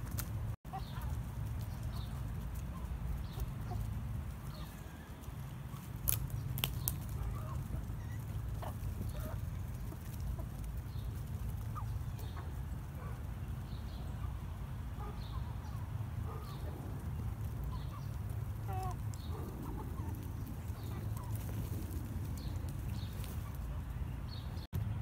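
Backyard chickens clucking softly now and then over a steady low rumble, with a couple of sharp clicks about six seconds in.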